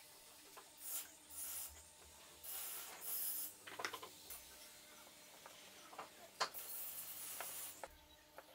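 Faint scraping and rubbing strokes as wood chips are cleared out of a freshly bored hole in a plywood block. A few sharp clicks come about four seconds in and again later as a small steel bushing is set into the hole.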